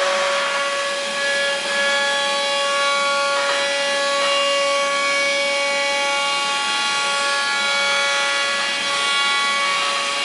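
Five-axis CNC machine's spindle and cutter running in a cut, a steady whine over rough cutting noise.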